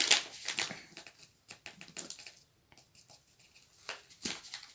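A spoon scooping and shaking out cornstarch: a scatter of small clicks and scrapes, the loudest right at the start and another sharp one near the end.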